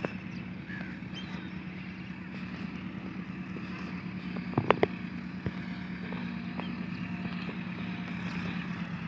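Distant Massey Ferguson 385 tractor's diesel engine running steadily as it works a front blade across the soil, a low even hum. Near the middle, three sharp clicks come in quick succession, followed by one fainter click.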